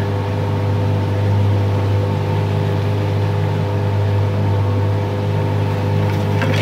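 Outboard motor of a small open metal boat running steadily underway: a constant low drone with a steady hum.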